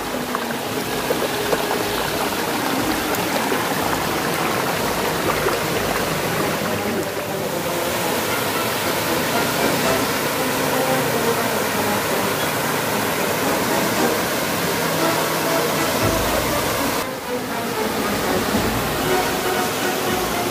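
Rushing water of a shallow rocky stream and a small waterfall, a steady even hiss that briefly dips twice.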